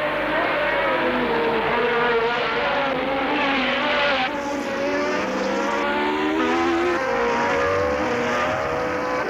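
1970s Formula One car engines running at high revs, their pitch rising and falling as the cars drive the circuit. The sound changes abruptly about four seconds in.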